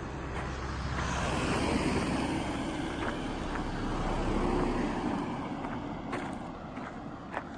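A motor vehicle driving past: a broad rushing noise with a low rumble that swells over the first couple of seconds, holds, then fades away.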